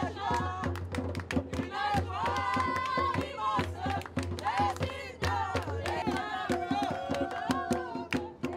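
Group singing with hand clapping over music, as people dance in celebration.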